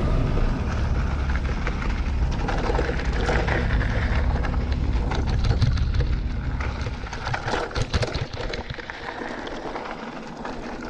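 Electric mountain bike riding a dirt trail: tyres crunching over loose ground with many small clicks and rattles, under wind rumble on the microphone. The rumble drops away over the last two seconds or so.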